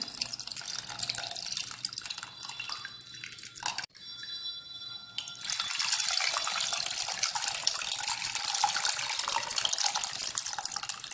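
Tamarind water poured from a bowl over a hand into a metal pot of mashed tomatoes, splashing and trickling steadily. It drops out briefly about four seconds in, then runs louder.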